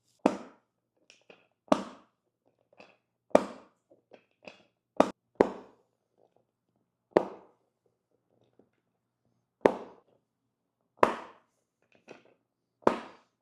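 A series of sharp clacks, about nine loud ones spaced one to two and a half seconds apart, each fading quickly, with fainter ticks in between.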